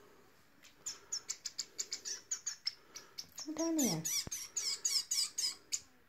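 Fledgling parrot finches and a star finch giving rapid, high-pitched begging chirps, several a second, as they are hand-fed. About halfway through comes a brief, lower sound that falls in pitch.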